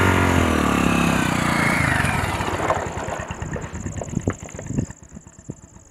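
Motorcycle engine pulling away and riding off, loud at first and fading steadily over about five seconds.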